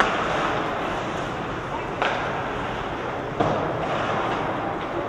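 Ice hockey game sound in a rink: a steady scrape and hiss of skates on the ice, with three sharp knocks of sticks or puck, one at the start, one about two seconds in and one a little before the end, under distant voices.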